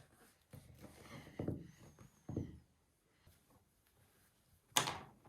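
Soft rustling as a doll's hair is handled and plaited, with one short, loud swish a little before the end.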